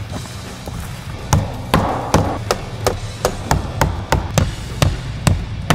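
Hand hammer driving nails through a plywood sheet into wall framing: a steady run of about a dozen sharp strikes, roughly three a second, starting a little over a second in.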